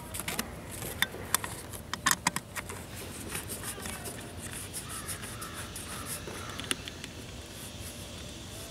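Sharp, irregular metal clicks and taps of a socket wrench working a small license-plate bolt in the first few seconds. Crows caw faintly in the background after that.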